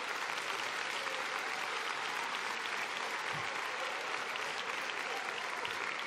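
Theatre audience applauding a comedian's punchline: dense, steady clapping.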